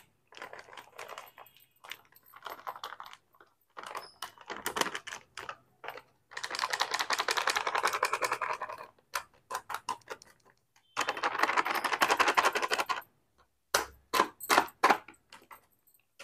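Plastic gulab jamun mix packet crinkling and rustling in a series of crackly bursts, the longest about two and a half seconds, as the dry powder is shaken out of it into a glass bowl.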